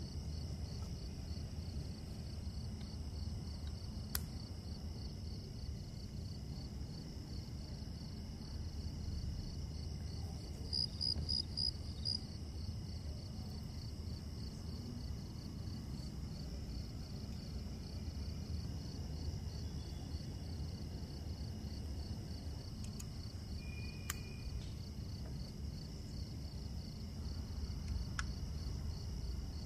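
An insect chirping steadily in a high, evenly pulsed trill, with four louder chirps about eleven seconds in, over a low steady hum. A few faint sharp clicks come through.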